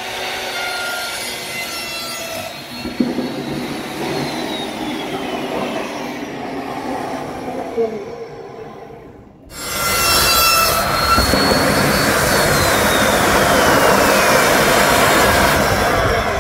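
A metal-cutting chop saw runs and cuts into a charged cylindrical lithium-ion cell, its whine dropping in pitch as the blade bites. About nine seconds in, a louder, steady rushing noise takes over as the cut cell goes into thermal runaway and vents flame while the blade keeps spinning.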